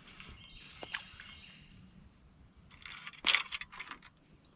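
Steady high-pitched drone of insects such as crickets, with light handling rustles and clicks, and a louder burst of scratchy rustling and clicks about three seconds in.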